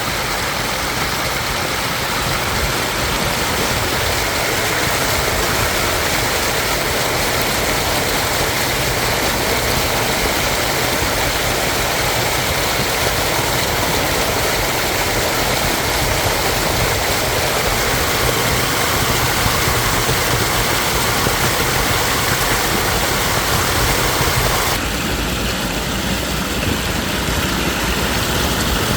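A shallow stream babbling and rushing steadily over stones, an even wash of water noise. About 25 seconds in it turns a little duller, with less hiss.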